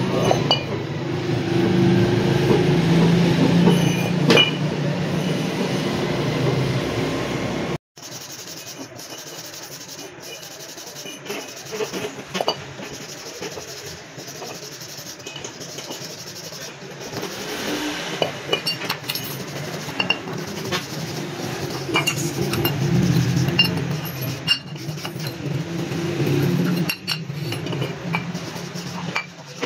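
Hand wire brush scraping over a rusty steel motorcycle wheel hub, with scattered metal clinks as the hub and brake plate are handled. A steady low hum runs under the first several seconds and again in the second half, and the sound cuts out for an instant about eight seconds in.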